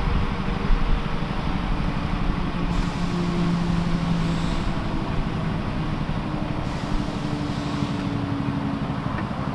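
Mosquito XET helicopter running on the ground: its turbine engine and spinning rotors make a steady noise, with faint low tones that drift in pitch.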